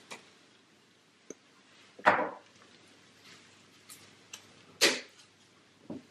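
A few separate knocks and taps as a teaspoon and spice jars are handled over a ceramic mixing bowl, the two loudest about two seconds and nearly five seconds in.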